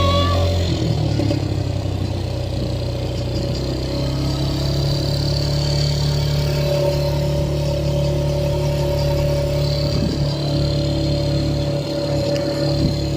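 ATV engine running at a steady speed.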